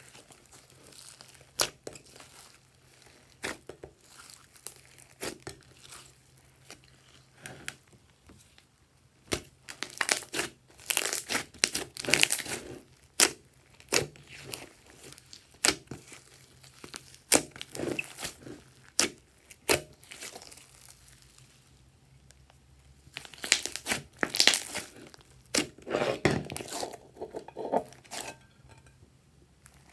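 Hands squishing and poking glossy slime mixed with beads and glitter: sticky pops and crackles, scattered at first, then coming thick and fast about ten to fourteen seconds in and again around twenty-four seconds in.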